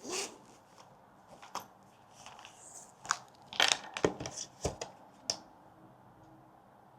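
Close-up handling of small objects and paper: a scatter of short clicks, taps and rustles, bunched together in the middle, with quiet room tone after.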